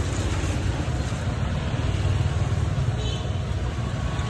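Steady low rumble of street traffic, with no sharp knocks or clear engine pitch standing out.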